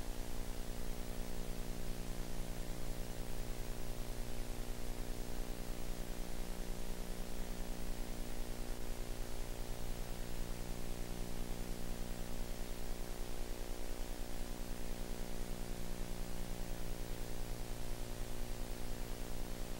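Steady electrical hum and buzz under a constant hiss, with no other sound.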